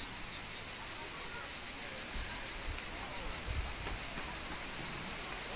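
A steady, high insect buzzing chorus from the trees, with faint distant voices of people.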